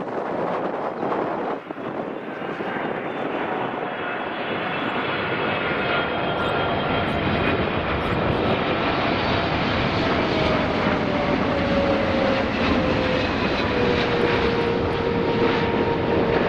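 Boeing 777-300ER on final approach, its GE90 turbofans running with a steady jet rumble that grows louder as it nears. A whine within it slowly falls in pitch.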